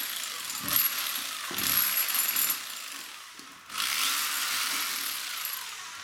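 Rotary hammer with a flat chisel bit hammering into a concrete ceiling, chasing out a groove for a cable along the crumbling mortar seam between slabs, with a couple of low knocks early on. It runs in two stretches with a brief break a little past the middle and stops near the end.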